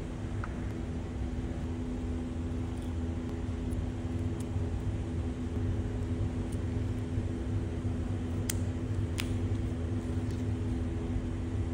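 A steady mechanical hum with a few held tones over a low rumble, like a workshop fan or air-conditioning unit. Two small sharp clicks come about eight and a half and nine seconds in, as hand tools work at a steering damper's shaft seal.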